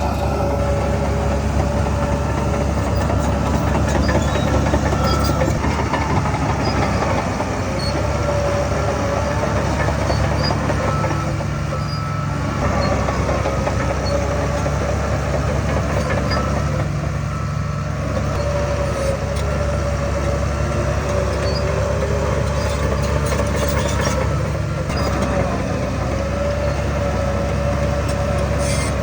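Diesel heavy earthmoving machinery running steadily under work, with a continuous engine drone and a whine that wavers slightly in pitch.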